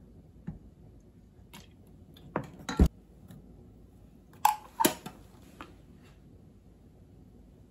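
Scattered clicks and clinks of kitchen handling: a wooden spoon knocking in a stainless steel mixing bowl while soy sauce and sugar are added, and the seasoning bottles and caps being handled. The loudest clinks come in a quick cluster about two and a half seconds in, with another pair near five seconds.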